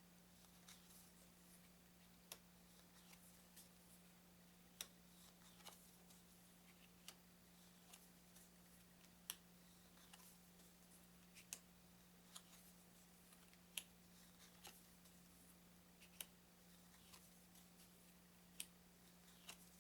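Thin plastic-coated playing cards being handled and laid down one at a time, a sharp snapping click every second or so, over a steady low electrical hum.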